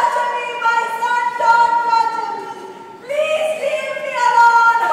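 A girl's high voice wailing in long, drawn-out notes, two held cries with a short break about three seconds in: acted weeping on stage.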